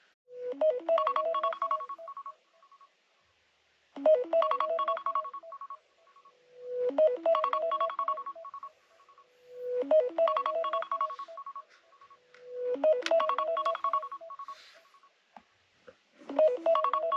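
iPhone alarm going off: a short melodic phrase of beeping notes, about two seconds long, repeating about every three seconds, six times in all.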